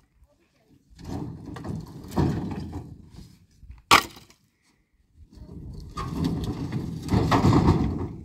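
Dry firewood branches scraping and rattling as they are dragged about in a pickup truck's bed, with one sharp crack of wood about four seconds in.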